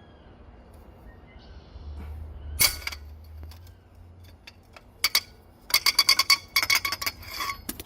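Metal hand tools clicking and clinking: one sharp clack about two and a half seconds in, then a few clicks and a quick, uneven run of clinks through the last three seconds.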